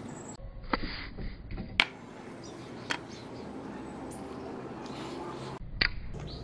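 Nickel strip being pulled and bent off a spot-welded 18650 battery cell with pliers: a few sharp metallic clicks and snaps, the strongest about two seconds in, as the strip holds firmly at the welds.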